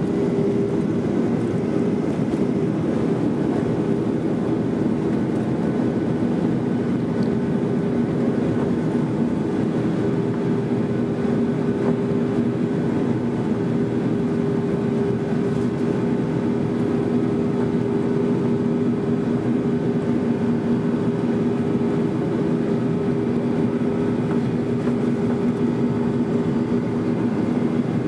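Jet airliner's underwing engines at takeoff thrust, heard from inside the cabin over the wing as the plane lifts off and climbs: a steady, loud rush with several low steady hum tones that does not change.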